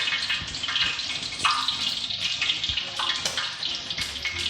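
Fish frying in hot oil in a disco pan: a steady sizzle with scattered crackles.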